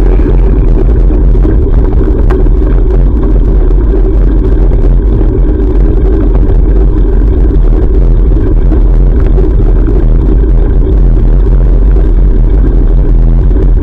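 Loud, steady low rumble of wind buffeting a GoPro action camera's microphone while cycling.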